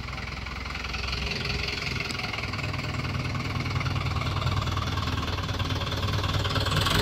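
Farm tractor's diesel engine running at low speed while it pulls a dumper trailer, steady and growing louder as the tractor comes closer.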